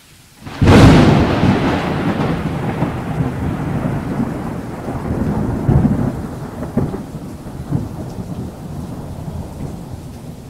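A thunderclap: a sudden loud crack about half a second in, followed by a long, deep, uneven rumble that slowly fades.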